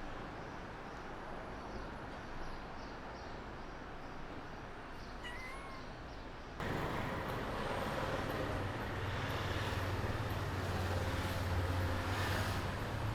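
Background street noise with a single short cat meow about five seconds in. Shortly after, the sound cuts to louder ambience with a steady low rumble that grows toward the end.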